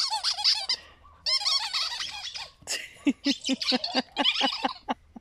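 A squeaky toy ball being chewed by a dog, squeaking over and over: a cluster in the first second, another from about one to two and a half seconds in, then a fast run of short squeaks, about five a second, near the end.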